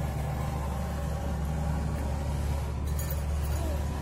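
A steady low engine hum, with a faint click about three seconds in.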